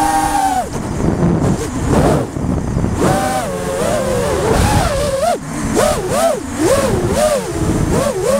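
FPV racing quadcopter's brushless motors whining, the pitch rising and falling as the throttle changes. In the second half it swings up and down quickly, about twice a second.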